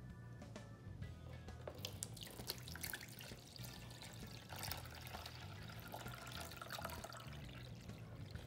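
Water poured from a plastic pitcher into a metal loaf pan, a faint trickling and splashing that starts about two seconds in, over quiet background music.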